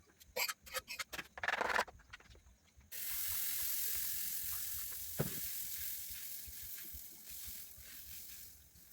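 A few sharp clicks and clatter of cookware, then, about three seconds in, a hot pan of salted peanuts suddenly starts sizzling, a steady hiss that slowly fades.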